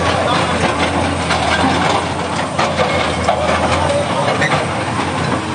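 Diesel engine of a Komatsu PC210 hydraulic excavator running close by, a steady low hum under a dense clatter of knocks and rattles.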